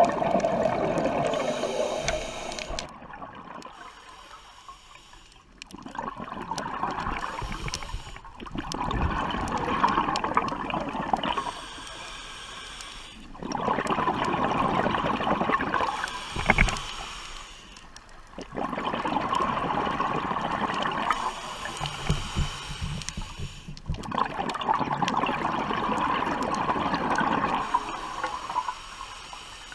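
Scuba diver breathing through a regulator underwater: rushing, gurgling exhaust bubbles for two to four seconds at a time, alternating with quieter stretches, in a steady breathing rhythm repeating every five seconds or so.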